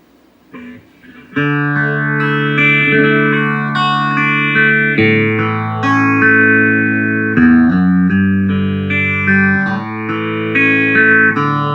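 Electric guitar chords played through a 1975 Ibanez/Maxon Phase Tone phaser pedal set to about half speed, the tone sweeping up and down every couple of seconds. The playing starts a little over a second in.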